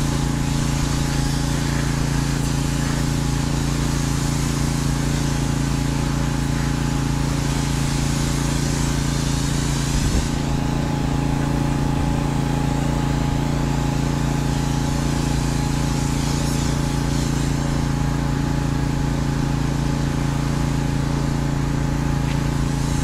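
A steady engine drone under the hiss of a high-pressure water spray, which swells and fades as the wand works over a semi truck's wheels and tyres.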